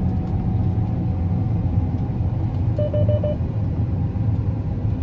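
Combine harvester running, a steady low drone heard from inside the cab, with four quick electronic beeps about three seconds in.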